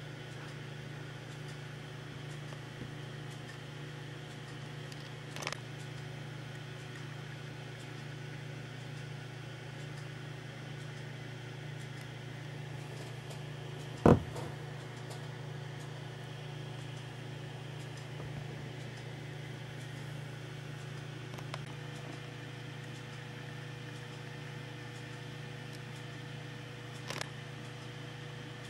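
A steady low hum with faint hiss over it, broken by a single sharp click about halfway through and two fainter clicks. A thin steady tone joins near the end.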